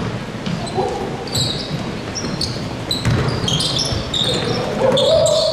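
Basketball game play: the ball bouncing on the court with many short, high-pitched sneaker squeaks throughout.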